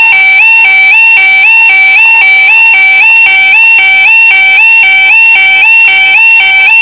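Level crossing warning alarm sounding: a loud two-tone electronic yodel alternating between a lower and a higher pitch about twice a second, which means the crossing lights are on and a train is due.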